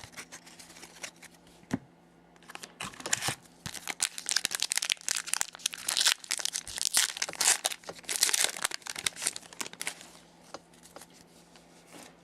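Plastic wrapper of a hockey-card pack crinkling and tearing as it is opened, in uneven bursts of crackle that are thickest from about two and a half to ten seconds in.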